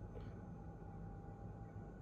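Quiet room tone with a low, steady hum; no distinct event.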